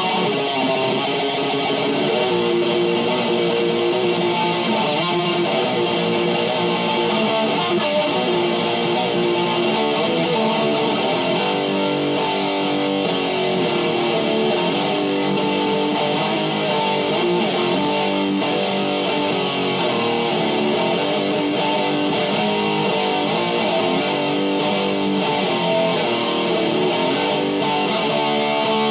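Distorted electric guitar playing extreme-metal riffs, continuous and steady in loudness.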